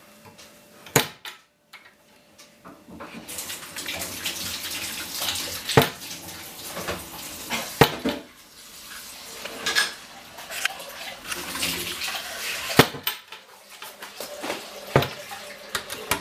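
Tap water running into a sink, starting about three seconds in, with several sharp clacks as a wooden cabinet door is tugged against a plastic child-safety lock.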